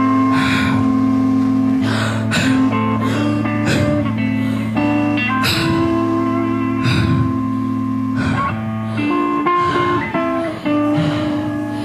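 Live rock band playing an instrumental passage: guitars holding sustained notes over a steady bass line, with drum and cymbal hits at a regular beat.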